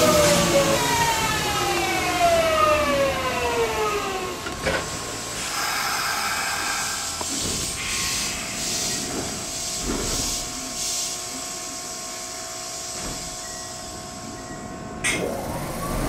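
Kintetsu electric train's traction motors whining down in pitch as it brakes to a stop at the platform, followed by a steady electrical hum while it stands. A sharp click sounds near the end.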